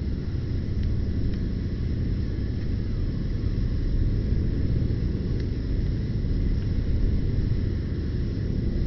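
Campfire burning: a steady low rumble with a few faint crackles, about a second in and again past five seconds.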